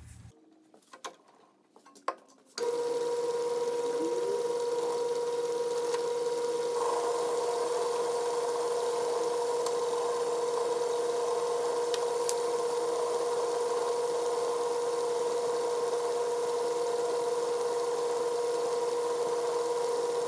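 A 1936 Atlas 12-inch metal lathe switches on about two and a half seconds in and runs steadily, with a constant mid-pitched whine over an even mechanical rush. Before it starts there are a few light clicks of tailstock adjustment.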